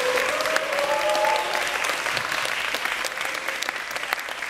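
Audience applause: dense clapping that slowly dies down.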